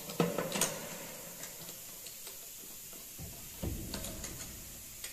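Handling noise as a replacement front-end part is held and pressed into place against the car body: a quick run of sharp clicks and knocks, then a duller knock with a few more clicks a little past the middle.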